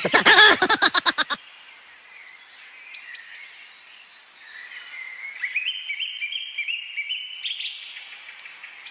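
A loud, rapidly pulsing voice cut off sharply about a second and a half in; after a short lull, birds chirp and twitter, with a run of quick stepped notes from about the middle.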